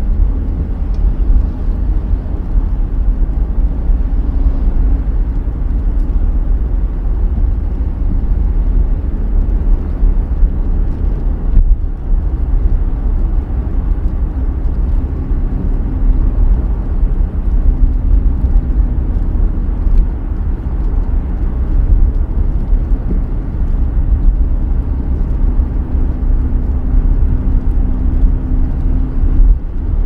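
A car driving on a wet road in the rain, heard from inside: a steady low rumble of tyres and engine with a faint droning hum.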